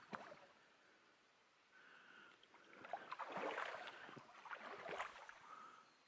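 Faint, uneven trickling and splashing of a small waterfall running into its plunge pool, with a few light clicks, louder in the second half.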